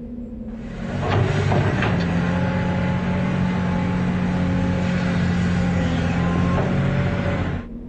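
Sound effect of a tracked excavator's engine running steadily with a low hum and a few clanks, starting about a second in and cutting off suddenly near the end.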